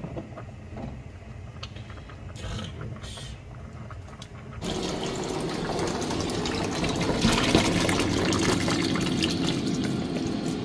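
Kitchen tap running, pouring onto boiled naengmyeon noodles in a strainer over a stainless-steel sink to rinse them. The water starts suddenly about four and a half seconds in and runs steadily after that.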